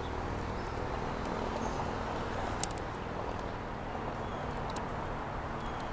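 Steady outdoor background noise with a single sharp knock about two and a half seconds in, as a man hangs his weight on a wooden pole crossbeam, lets go and walks across dirt and leaf litter.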